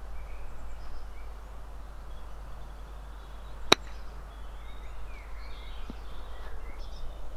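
A single sharp click about halfway through: a 58-degree wedge striking a golf ball on a pitch shot. Faint birdsong and a steady low rumble run underneath.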